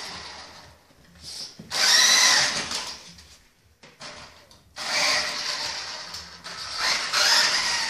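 Toy RC buggy's small electric motor and gears whining in three bursts of throttle. Each burst starts sharply and then fades.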